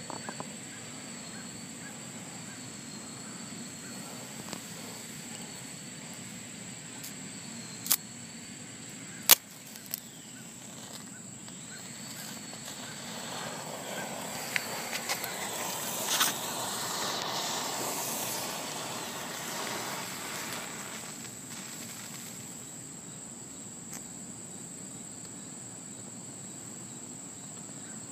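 A box of packed green-tipped matches flaring up: a hiss with crackles swells about halfway through and dies away over several seconds. Two sharp clicks come shortly before it, and a steady high insect trill runs underneath.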